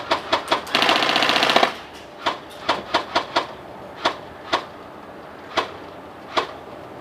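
Airsoft guns firing: a rapid full-auto burst about a second in, then a string of single shots spaced out over the next few seconds.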